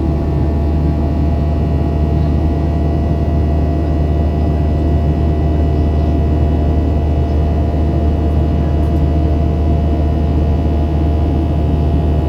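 Boeing 737-800's CFM56 jet engines running with a steady, unchanging drone: a deep rumble with several steady tones over it.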